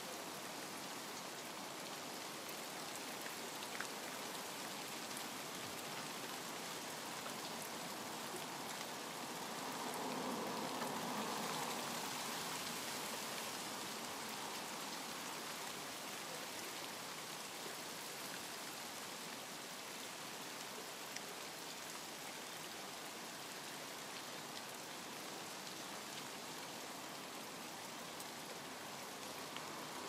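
Steady rain falling, an even hiss of drops, growing a little louder for a few seconds about ten seconds in.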